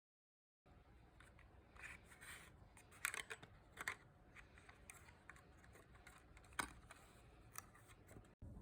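Faint handling noises of small parts: a few soft clicks and rustles, the sharpest about three and four seconds in and again near seven seconds.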